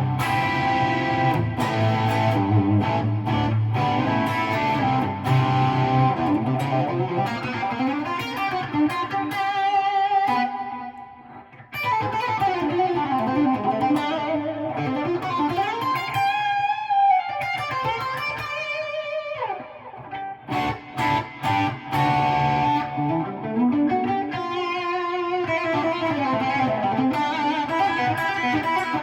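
Gibson R9 Les Paul with Custombucker pickups played through a Friedman SS100v2 amp on its first gain channel: a mid-gain overdriven electric guitar tone. It plays chords and lead lines with string bends, with a brief pause about 11 seconds in.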